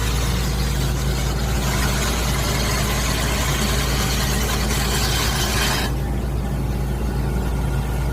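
Engine-driven power unit of an automatic core drill running steadily at a low pitch. A harsh, noisy sound of the drill working rides over it and cuts off suddenly about six seconds in, leaving the engine hum.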